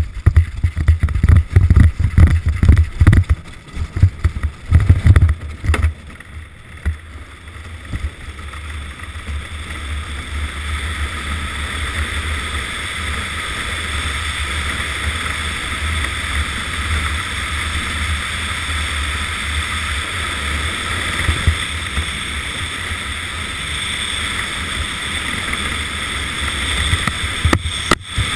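Bobsleigh runners rumbling and hissing on the ice chute, with wind rushing past the camera, the noise building steadily as the sled gathers speed. Heavy, irregular thumps and knocks in the first six seconds or so.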